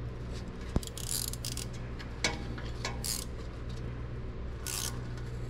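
Scattered sharp metallic clicks and short scraping hisses from hand tools working a stainless steel band strap clamped around an exhaust pipe, over a steady low hum. The loudest clicks come about a second in and again a little past two seconds.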